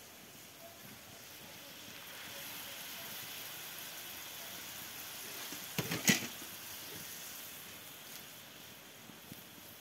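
Water poured from a kettle onto pieces of goose in a hot sac (convex iron griddle), sizzling and hissing steadily; the hiss builds from about two seconds in and eases off near the end. A quick pair of sharp knocks about six seconds in.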